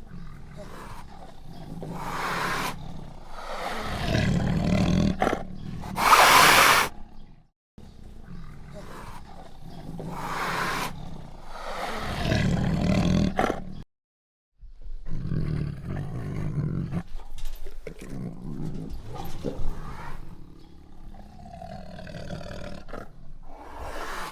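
Tiger roaring and growling in long, repeated roars, the loudest about six seconds in. The sound cuts to silence twice, about 7.5 and 14 seconds in, between separate recordings.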